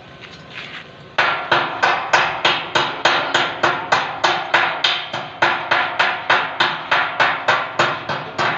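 Hammer striking the steel tubular frame of a gate in steady, even blows, about three a second, each with a short metallic ring. The blows start about a second in.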